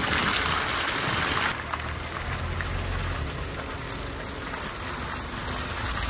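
Car tyres hissing and splashing through wet mud and water on a dirt track, over a low rumble from the car. The hiss is loudest at first and eases about one and a half seconds in.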